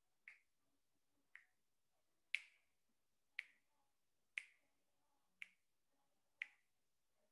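Seven sharp finger snaps, evenly spaced about one a second, marking off the seconds of a ten-second breath hold.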